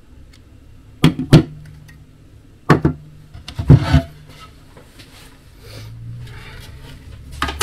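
Sharp knocks and clatter from a wooden board and a plastic power point being handled and set down on a wooden workbench, about five impacts in the first four seconds, with a faint steady hum between them.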